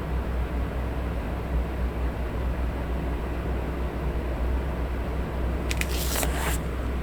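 Electric fan running with a steady white-noise hum, and a short rustle of paper near the end, as from a page or notebook being handled.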